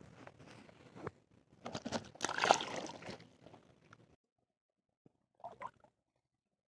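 Water splashing and sloshing, loudest in a burst about two seconds in, then stopping abruptly, with two short faint splashes near the end.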